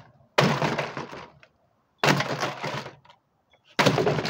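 Three heavy sledgehammer blows onto a toy truck inside a plastic trash can, about a second and a half apart. Each is a sudden loud crack that dies away over most of a second.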